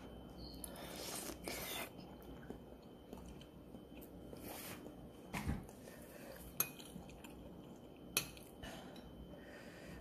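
Metal spoon clinking and scraping in a bowl of ramen broth as it scoops, with a few sharp clinks and soft eating sounds in between.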